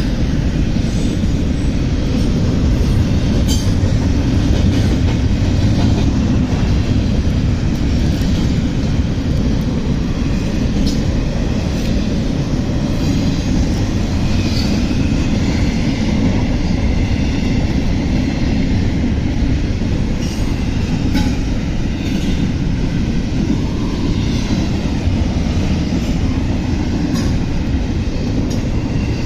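CSX intermodal freight train rolling past at close range: a steady heavy rumble of railcars with sharp clicks every few seconds as wheels cross rail joints, and faint wheel squeal.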